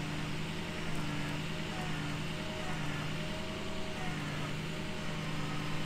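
Truck engine idling steadily, a constant low hum.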